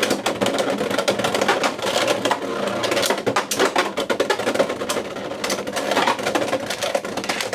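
Beyblade X spinning tops whirring and clattering in a plastic stadium, with rapid irregular clicks and knocks as they hit each other and the stadium.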